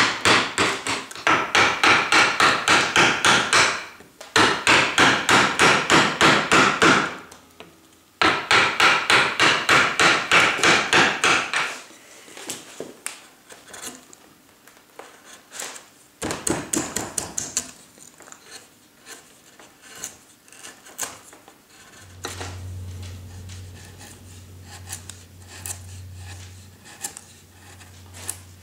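A mallet driving a carving gouge into limewood in quick runs of about three to four blows a second: three long runs, then a short one about sixteen seconds in. After that come softer scraping and slicing sounds of the gouge pushed by hand through the wood, with a low steady hum in the last few seconds.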